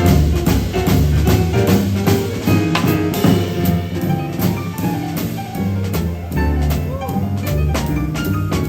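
Jazz quintet playing a bebop blues: melodic lines over a low bass line stepping from note to note and a drum kit keeping time on cymbals.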